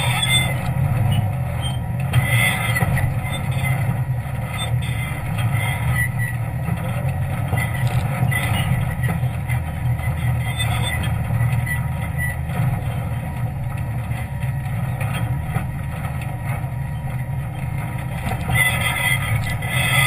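Jeep engine running steadily at low speed, crawling up a steep rocky trail.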